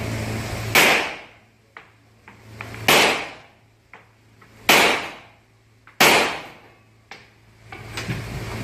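Four shots from a Rock Island Armory Tac Ultra FS HC 1911-style pistol, spaced about one and a half to two seconds apart, each followed by a short echo off the indoor range's walls. Fainter sharp clicks and pops come between the shots.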